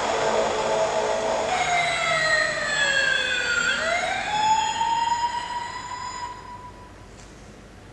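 Siren-like electronic sound effect from a children's car bed's sound unit: after a second and a half of noisy engine-like rushing, a tone glides down, then swings back up and holds before fading out.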